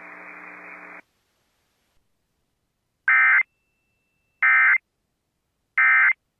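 Radio hiss with a low hum that cuts off about a second in, then three short, identical bursts of buzzy data tones about a second and a half apart: the Emergency Alert System end-of-message (SAME EOM) code, sent three times to close a NOAA Weather Radio alert.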